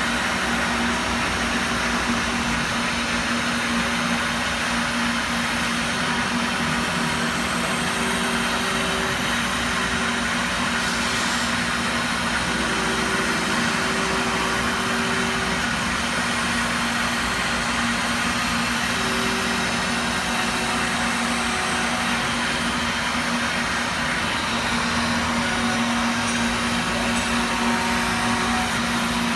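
CNC machine running steadily: a constant hum under a broad rushing noise, with a second, higher tone that comes and goes every few seconds.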